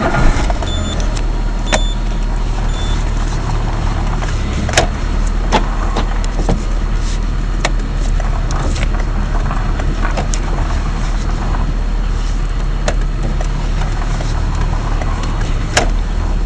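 A car engine running steadily, with scattered sharp clicks and three short high beeps in the first few seconds.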